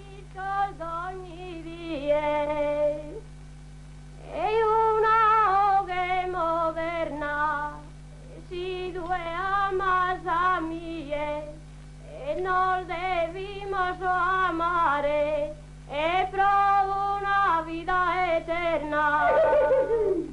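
Unaccompanied solo voice singing a slow melody with wavering, ornamented pitch, in about five phrases separated by short pauses. A steady low hum runs underneath.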